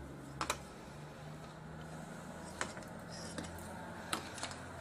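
Light clicks and taps from a hand handling the opened laptop's internal parts: a close pair about half a second in, then a few single ones, over a faint steady low hum.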